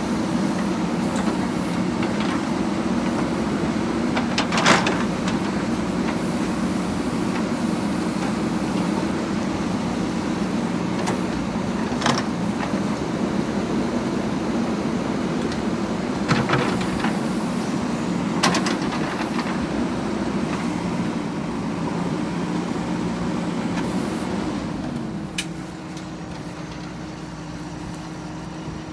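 JCB 3DX backhoe loader's diesel engine running steadily, with a few sharp metal clanks. Near the end the engine drops in pitch and gets quieter, easing off.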